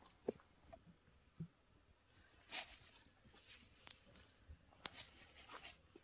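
Near silence, with a few faint scattered clicks and a short rustle about two and a half seconds in.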